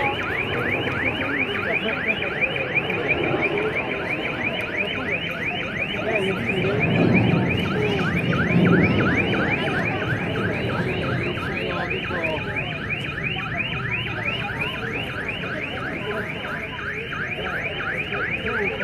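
A high chirp repeating steadily at about four a second, each chirp sweeping downward, in the manner of an electronic alarm. A low rumble swells up and fades away about seven to nine seconds in.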